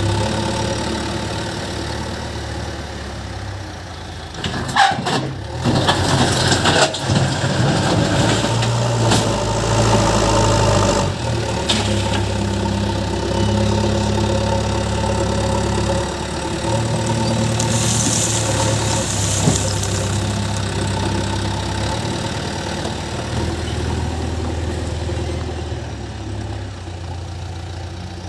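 JCB 3DX backhoe loader's diesel engine running under work, its speed stepping up and down. Sharp clanks come about five to seven seconds in and again near eleven seconds.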